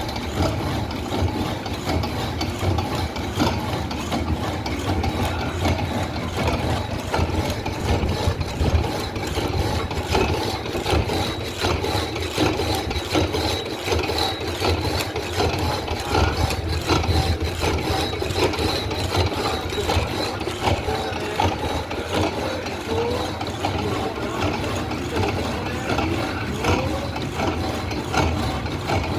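Industrial horizontal band saw running and cutting through a large steel shaft: a steady machine hum with dense, continuous clicking and rattling and a faint high tone.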